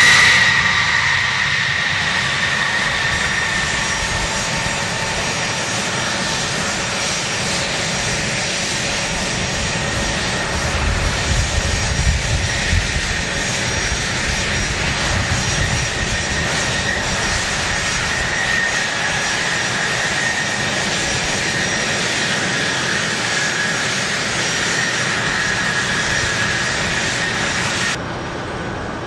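Lockheed C-5 Galaxy's four turbofan engines at take-off power as it passes and climbs away: a high turbine whine that drops in pitch as it goes by, over steady jet noise, with a deeper rumble about halfway through.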